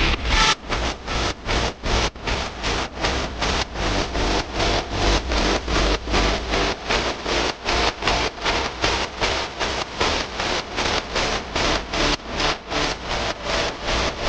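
Background music with a steady pulsing beat, about three pulses a second.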